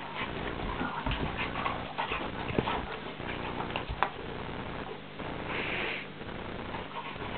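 A Doberman and a brown Labrador wrestling in play on carpet: irregular scuffling and mouthing noises with a few sharp clicks, the loudest about two and a half and four seconds in, and a short hissy burst near six seconds.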